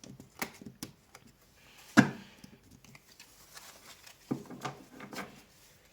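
Tarot cards being handled: several light clicks and taps, one sharper knock about two seconds in, then cards rubbing and sliding against each other near the end.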